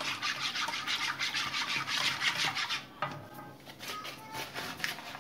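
A whisk stirring milk and cornstarch in a saucepan to start a béchamel: a quick, even rhythm of scratchy strokes against the pan. It stops about three seconds in, followed by a few light taps.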